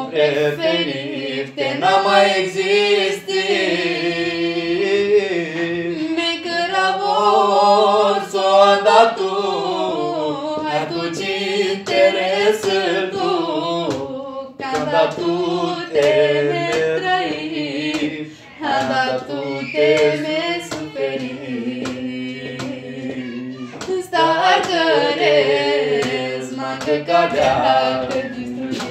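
Unaccompanied singing by more than one voice, with long wavering held notes over a lower steady voice line, and scattered sharp clicks.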